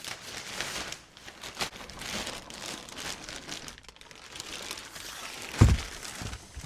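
Crinkling, rustling handling noise with many small crackles, and a single heavy low thump about five and a half seconds in.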